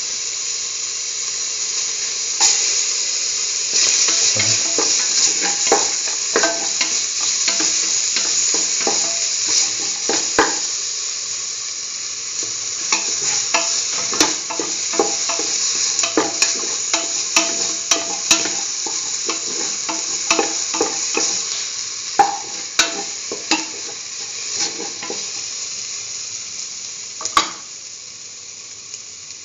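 Chicken, garlic and freshly added tomato pieces sizzling in hot oil in a pan, with frequent scrapes and clicks of a utensil stirring them.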